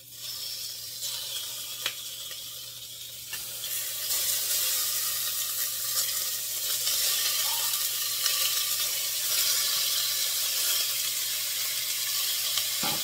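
Cubes of raw beef sizzling as they go into a hot stainless steel pot greased with cooking spray. The sizzle grows louder about four seconds in as more meat is added, then holds steady.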